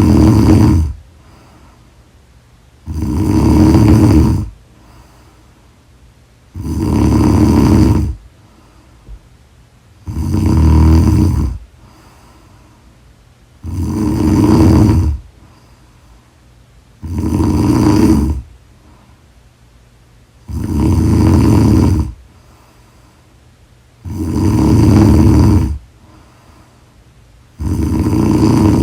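Loud, regular snoring from a sleeper, each snore about a second and a half long and repeating about every three and a half seconds, with quiet between them.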